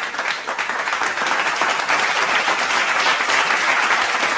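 Applause: many people clapping their hands together in a steady, dense patter.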